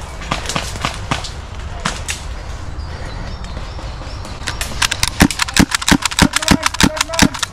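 Airsoft guns firing: scattered sharp shots, then a rapid string of louder shots, several a second, through the second half.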